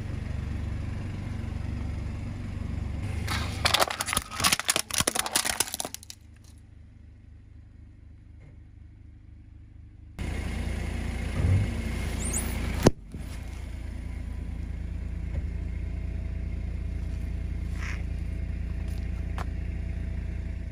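Car engine running at idle while its tyre rolls over and crushes objects on concrete: a burst of crackling and crunching a few seconds in, and a single sharp bang about two-thirds of the way through.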